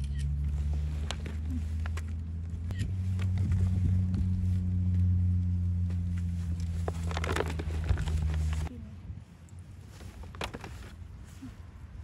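A steady low engine hum, with scattered clicks and knocks over it, cuts off suddenly about nine seconds in.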